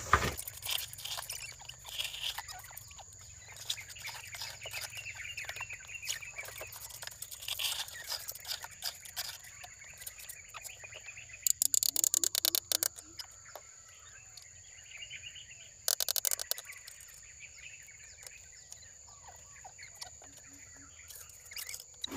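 Birds chirping over a steady high-pitched insect drone, with two short, loud, rapid rattles, one about twelve seconds in and one about sixteen seconds in.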